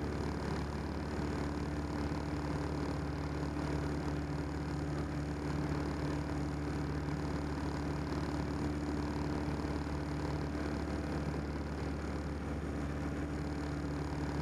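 A 1946 Piper J-3 Cub's small four-cylinder air-cooled engine and propeller droning steadily in flight, heard inside the cockpit with the rush of air over the cabin.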